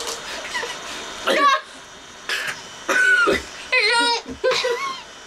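People coughing and gagging on a mouthful of dry ground cinnamon, in several harsh bursts, with strained voiced sounds between the coughs.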